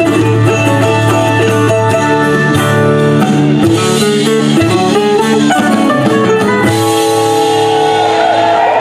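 Live band playing: plucked strings over drums, moving through chord changes and then settling onto a long held chord about seven seconds in, as the song ends.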